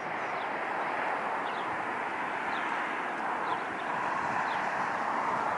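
Jet engine roar of a Royal Air Maroc Boeing 737-800 (CFM56 engines) touching down and rolling out on the runway, a steady noise that swells slightly as it goes on. A few short bird chirps sound over it.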